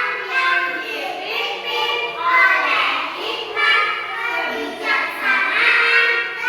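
Children's voices in chorus, chanting in unison.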